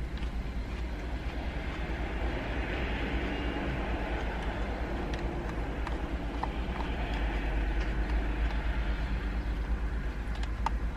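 Steady low rumble of a car cabin, typical of the vehicle idling, with a hiss that swells and fades across the middle. Over it come a few faint clicks of a plastic fork against a plastic bowl as someone eats.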